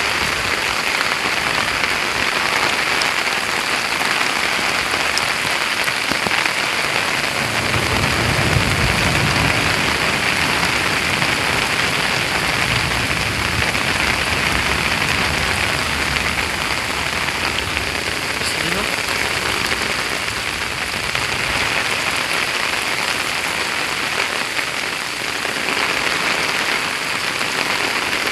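Steady heavy rain falling on surfaces at the end of a thunderstorm. A low rumble swells and fades about eight to twelve seconds in.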